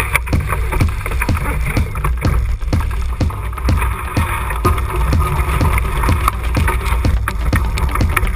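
Wind buffeting a yacht-mounted action camera's microphone in a heavy rumble, with rushing water and spray as the heeled racing yacht drives through the waves. A steady run of sharp clicks, about three a second, sounds throughout.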